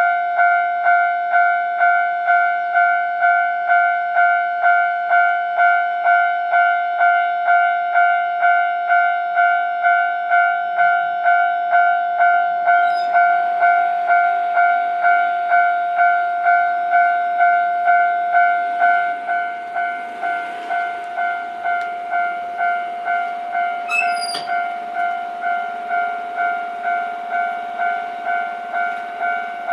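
Japanese railway level crossing's electronic warning bell ringing in a steady, regular pulse of about one and a half dings a second, a clear two-tone ding. It drops somewhat in level about two-thirds of the way through, while a faint rushing noise builds underneath from about halfway.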